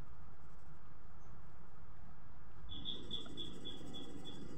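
Electronic doorbell with a bird-chirp tone ringing: a quick run of short, high chirps, about four a second, starting a little past halfway in.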